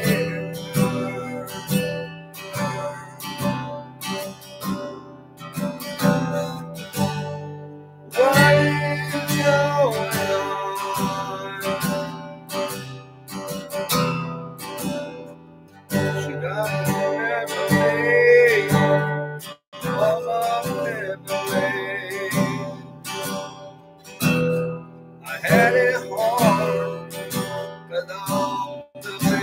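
Strummed acoustic guitar with a man singing over it, the voice coming in phrases of a few seconds.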